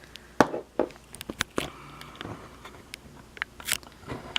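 Small metal tools and a lock being handled: a run of sharp, irregular clicks and taps spread through the few seconds.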